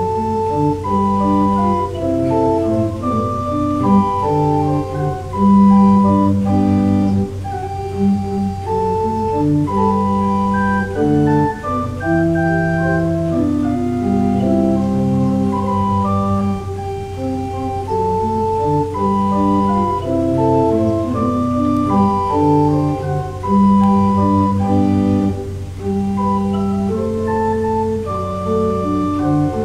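Church organ playing a slow piece in held chords over a steady low pedal note, with a melody moving through them.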